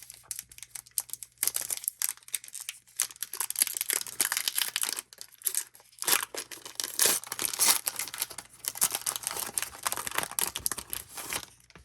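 Plastic wrappers of 2021 Topps Gypsy Queen baseball card packs being torn open and crinkled by hand, in two long stretches of crackling with a short pause about halfway.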